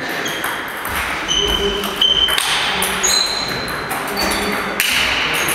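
Table tennis rally: the celluloid ball knocking off rubber paddles and bouncing on the table, several hits followed by a short high ping, with the players' steps on the hall floor. The hits stop as the point ends.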